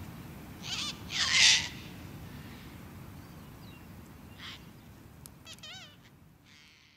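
Sulphur-crested cockatoo giving a loud, harsh screech about a second and a half in, among shorter squawks and quick warbling bird notes, over a steady low rumble.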